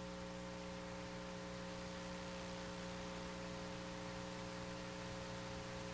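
Steady electrical mains hum with several overtones and a faint hiss, the background noise of the broadcast audio line.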